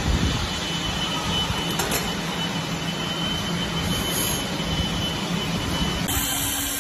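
Steady noise of industrial machinery running, with a low hum and a faint high whine throughout. The sound changes abruptly near the end.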